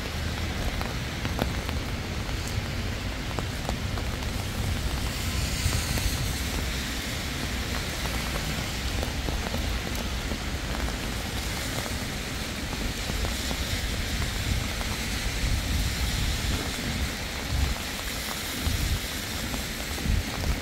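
Steady rain falling, with scattered drop ticks over an even hiss and a low rumble underneath.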